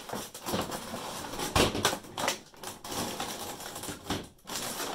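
Thin clear plastic clamshell packaging crinkling and crackling as it is handled and pulled off a boxed RC van, with irregular sharp clicks, loudest about a second and a half in.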